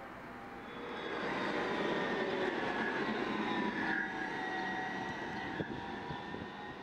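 Modern low-floor articulated tram (Gothenburg M32) passing close and pulling away: a rumble of wheels on rail with a thin, slightly wavering whine, swelling about a second in and fading over the last few seconds.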